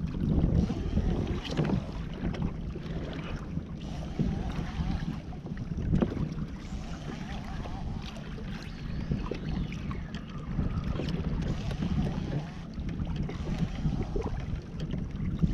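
Wind buffeting the microphone over a low rumble, with water splashing against the hull of a fishing kayak a few times.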